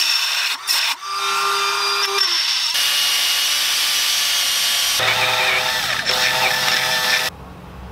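A cordless drill boring through a thin aluminium bracket strip into a wood block beneath. It starts and stops in short bursts at first, then runs steadily under load, with its pitch and grinding changing as the bit cuts, and stops abruptly about seven seconds in.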